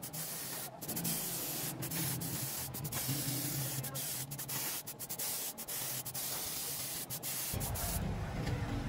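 Compressed-air gravity-feed spray gun hissing as it sprays green paint onto an air-compressor pump, with short breaks in the hiss about once a second. Near the end the hiss stops and a low rumble takes over.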